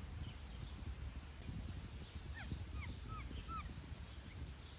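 A string of short, high chirping calls, several a second, each a quick falling or arched glide, over a steady low rumble.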